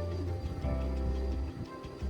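Background music with held bass notes that change pitch about once a second.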